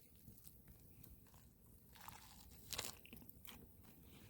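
Faint crunching as a person bites into a burger on a toasted bun and chews, with one louder crunch a little under three seconds in.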